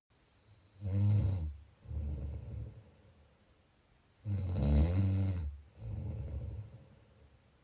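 A person snoring: two loud snores about three and a half seconds apart, each followed by a quieter, lower breath.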